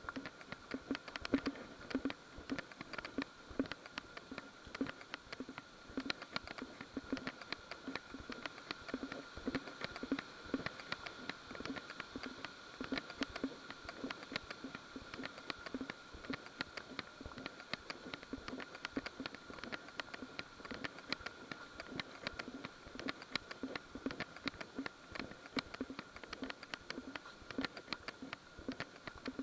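Footsteps rustling through leaf litter and undergrowth at a walking pace, a dense run of small irregular rustles and clicks, over a faint steady high tone.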